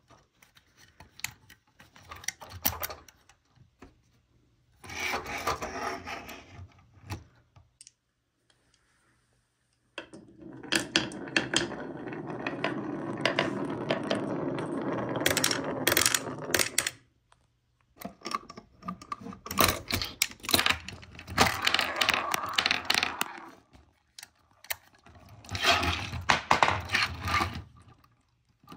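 Glass marbles rolling and clattering down a wavy-grooved wooden slope, with sharp clicks as they knock together. The rolling comes in several runs, the longest lasting about seven seconds.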